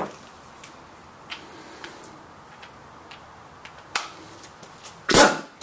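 Scattered light clicks and taps of tools being handled, then one loud, short clatter about five seconds in.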